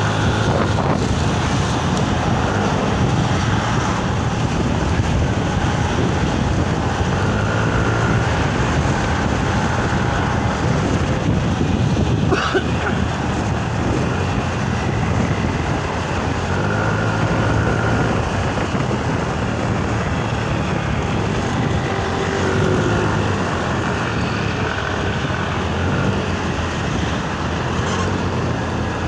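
Motorcycle engine running steadily while riding, with wind rushing over the microphone and the sound of road traffic around it.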